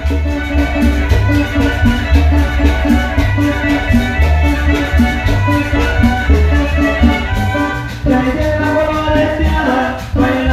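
Chanchona band playing a lively dance tune: violins carry the melody over a steady, pulsing upright-bass beat.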